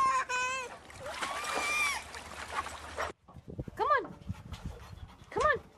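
A toddler's high voice over water splashing in a kiddie pool. After a sudden cut, a yellow Labrador retriever whines twice, each a short whine rising and falling in pitch, with a few light knocks between.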